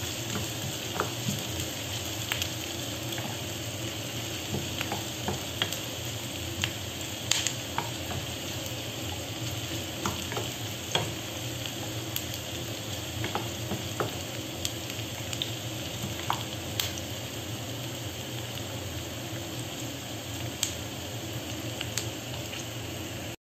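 Chopped garlic and onion sizzling steadily in hot oil in a pan, sautéing until light brown. A wooden spatula stirs them, clicking and scraping against the pan at irregular moments.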